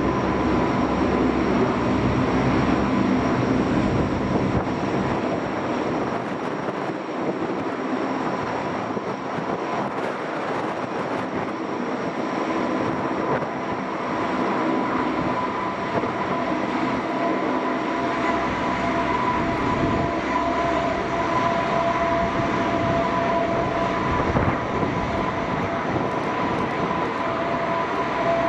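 Lockheed P-3-family four-engine turboprop patrol aircraft, Allison T56 engines running with a steady high whine over a broad engine rush. A second, lower whine joins about halfway through.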